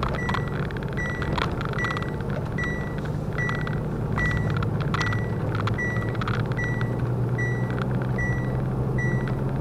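Truck engine running at low speed, heard from inside the cab, with the engine note rising slightly about four seconds in. Over it a short, high warning beep repeats evenly, roughly once every three-quarters of a second, with occasional light rattles.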